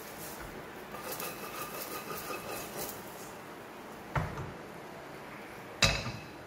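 A wooden spatula scrapes a thick cooked rice-rava mixture out of a stainless steel pan into a second steel pan, with faint metallic ringing. A soft knock comes about four seconds in. Near the end a loud metal clank rings out as the steel pan is set down on the gas stove's iron grate.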